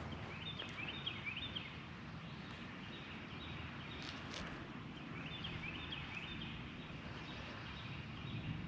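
Quiet outdoor pond-side ambience with a small bird singing two short runs of quick chirps, one about half a second in and one about five seconds in, and a couple of faint clicks about four seconds in.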